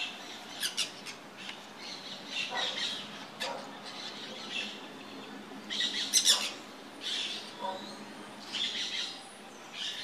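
Small parakeets squawking: a series of short, harsh, high calls at irregular intervals, loudest about six seconds in.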